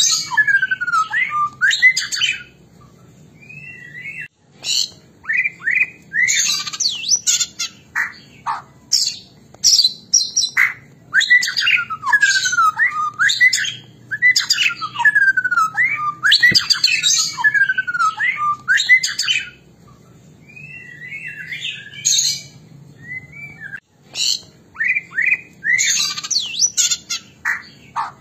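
White-rumped shama (murai batu) singing in its sharp, energetic 'fighting' style: rapid runs of descending whistles mixed with harsh, squawky notes, breaking off briefly about three seconds in and again near twenty seconds.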